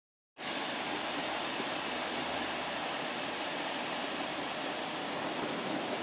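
Steady wind noise on the microphone, an even rushing hiss with no bird calls, beginning a split second in.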